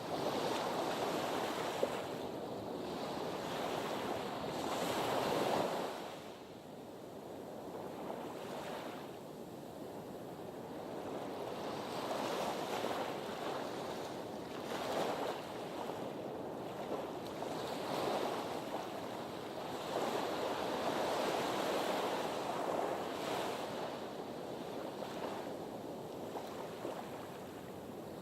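Sea waves washing against a harbour breakwater, the surf swelling and falling back every few seconds.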